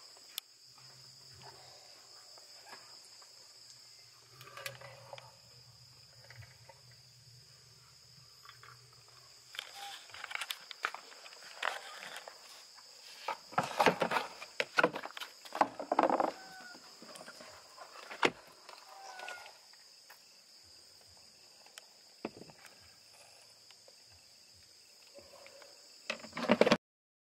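Night insects such as crickets trilling steadily, with footsteps on gravel and the knocks and scrapes of plastic containers being handled, busiest and loudest in the middle. A faint low hum runs through the first ten seconds or so.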